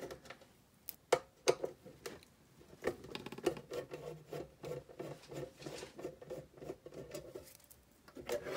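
Irregular clicks, taps and light scrapes of hands handling and turning over the metal case of an 858D hot-air rework station on a workbench, with a couple of sharper knocks a little over a second in.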